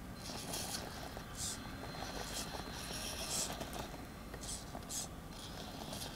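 HSP Pangolin RC rock crawler's electric motor and geared drivetrain whirring in several short throttle bursts as it crawls over rocks.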